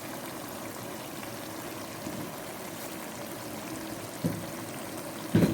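A pot of sauce simmering with a steady bubbling hiss, with two dull knocks near the end, the second louder.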